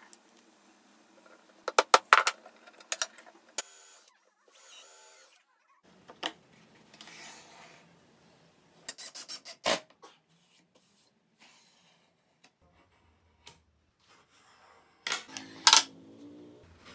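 Wooden parts being handled: wood scraping and sliding against wood, with scattered sharp clicks and knocks as a drilled wooden bar is set on metal studs and a wooden lid is slid into place. One click about ten seconds in is the loudest.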